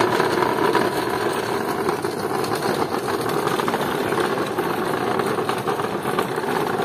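Small hard caster wheels of a wooden pallet-board toolbox rolling over rough concrete under the weight of a child, a steady rattling rumble.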